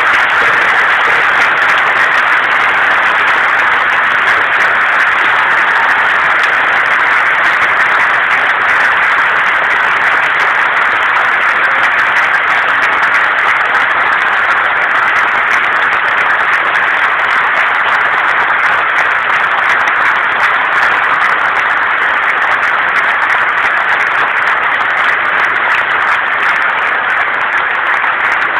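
A large hall audience applauding loudly and steadily, a sustained ovation at the end of a speech.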